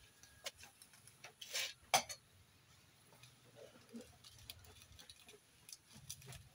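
Crackling and popping from a wood-fired drum stove and the wok of vegetables cooking on it: scattered faint clicks, with a short hissing crackle and then one sharp, louder pop about two seconds in.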